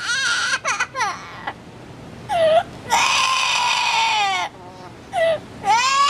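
Amazon parrot giving a string of drawn-out, wavering calls; the longest lasts about a second and a half and falls in pitch at its end, and another begins near the end.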